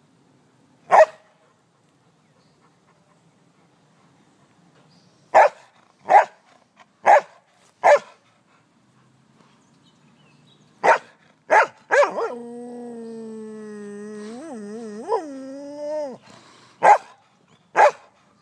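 English Springer Spaniel barking in play: single sharp barks spaced a second or more apart, about ten in all. About twelve seconds in, a long wavering howl lasts roughly four seconds, followed by two more barks.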